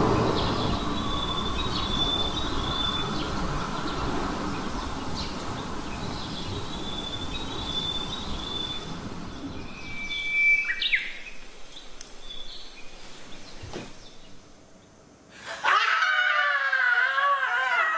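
Birds chirping over a fading background, with a brief high tone about ten seconds in. Near the end a man and a woman scream together in alarm.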